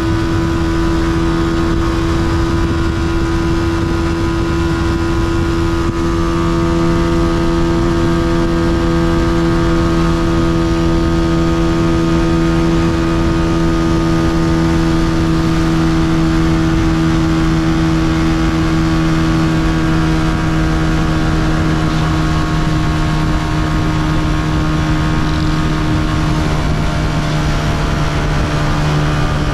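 Honda CG125's single-cylinder four-stroke engine running at a steady cruise, its pitch holding nearly constant, with wind noise underneath.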